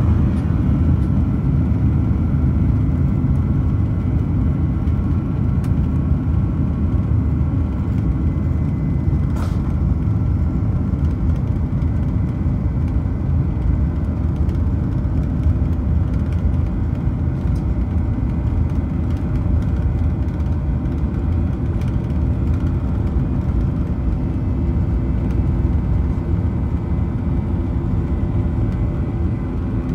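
Boeing 737-900ER's CFM56 jet engines and rolling airframe heard inside the cabin as a steady low rumble while the airliner moves onto and along the runway. Faint high engine tones in the first few seconds fade out about a third of the way through.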